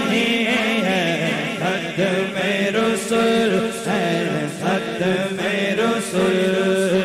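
A man singing a naat (Urdu devotional poem) through a microphone and loudspeakers, in long, wavering, drawn-out notes over a steady humming drone.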